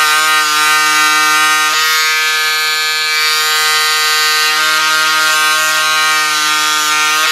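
Pink Power electric cordless scissors running without a break as they cut through sixteen folded layers of satin: a steady motor buzz whose pitch shifts slightly a couple of times. Under this thick a stack they are cutting a lot slower, but still cutting.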